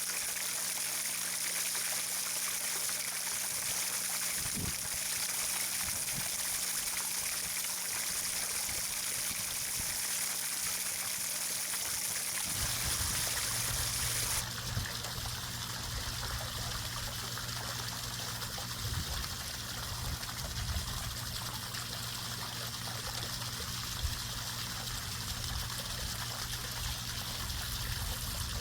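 Water trickling and running steadily. About halfway through, the hiss drops and a low rumble comes in underneath.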